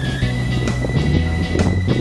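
Background music: a held high note over a stepping bass line with a steady beat.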